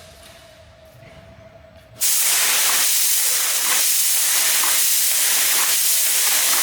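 A loud, steady hiss, like a jet of air or spray, that starts suddenly about two seconds in, after a quiet stretch with a faint steady tone.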